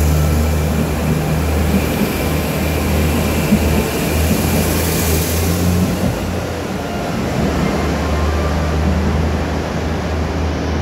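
JR HC85 series hybrid diesel train pulling out and passing close by, with a steady low engine drone. A rising hiss of wheels and air peaks as the last car goes by about five seconds in, then fades while the drone carries on as the train moves away.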